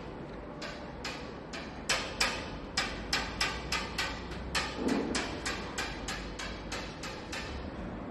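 Automatic edge banding machine running: a steady motor hum with sharp mechanical clacks repeating about three times a second.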